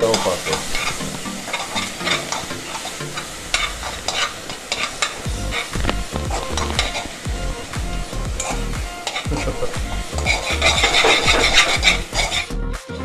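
Seasoned minced beef, chicken and pork sizzling as it is sautéed in a frying pan in its own juice, while it is stirred, the utensil scraping and clicking against the pan many times. The sound cuts out briefly near the end.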